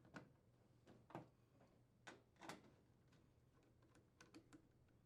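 Faint, irregular clicks and light metal taps from a 1/4-inch nut driver unthreading screws from a refrigerator's sheet-metal rear access panel.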